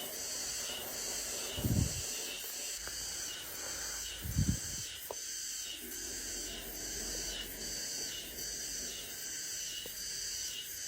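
Steady high-pitched insect chirring that pulses about twice a second, with two dull low thumps about two and four and a half seconds in.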